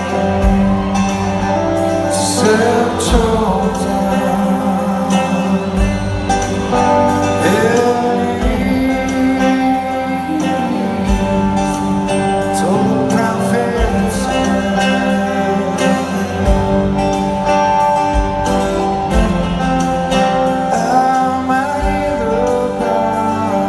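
Rock band playing live: a male lead vocal sung over electric guitars, bass guitar and drums, recorded from the audience in an arena.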